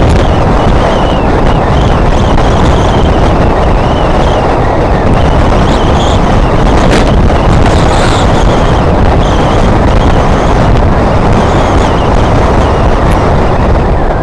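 Loud, steady wind buffeting on the microphone of a moving bike, with the rush of the ride beneath it.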